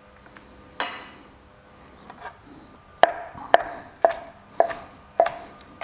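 Chef's knife slicing through grilled chicken thighs and knocking on a plastic cutting board. One cut comes about a second in, then a run of cuts about two a second through the second half.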